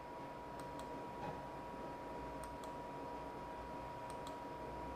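Quiet room tone with a steady faint high hum and soft clicks in pairs, about one pair every two seconds.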